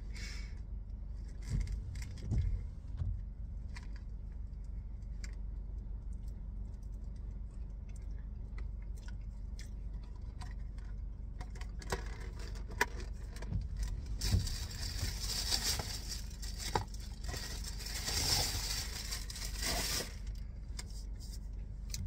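Handling noise over a steady low hum: a few scattered small clicks and taps, then about 14 seconds in a stretch of crinkling, rustling and jingling lasting some six seconds.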